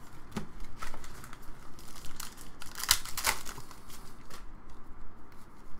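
A 2016 Panini Classics football card pack's foil wrapper being torn open and crinkled by hand: a string of crackles and rustles, loudest about three seconds in.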